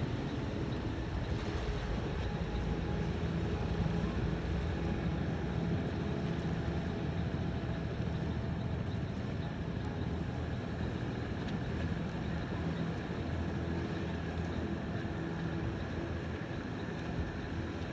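An engine running steadily at a constant speed, a low, even drone with no change in pitch.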